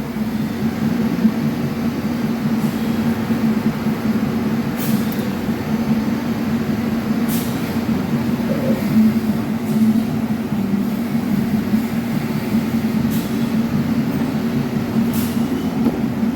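Steady machine hum: a low drone over a faint hiss, with four brief faint ticks.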